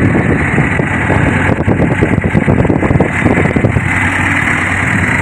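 Motor launch's engine running steadily and loudly under way, a continuous low drone.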